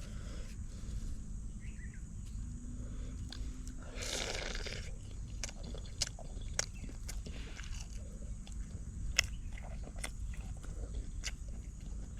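Crunchy biting and chewing of crisp food, with scattered sharp clicks and a louder crunch about four seconds in.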